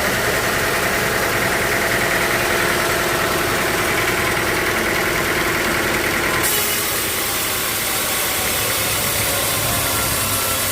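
Sawmill machinery running steadily with a continuous mechanical hum; about six and a half seconds in the sound changes abruptly to a hissier, thinner noise.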